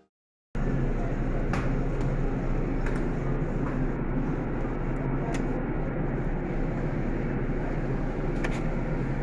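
Steady low rumble of road noise inside a moving car, with a few faint clicks. It starts abruptly about half a second in.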